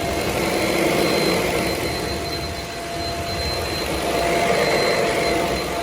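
Shark Rocket HV343AMZ corded stick vacuum running, a steady motor whine over the rush of air, swelling and dipping a little in loudness.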